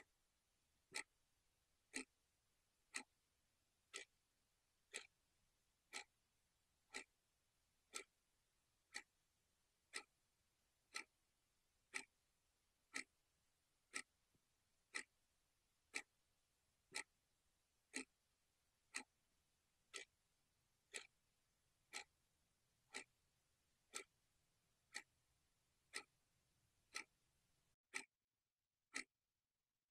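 Clock ticking once a second, sharp, even ticks over a very quiet room.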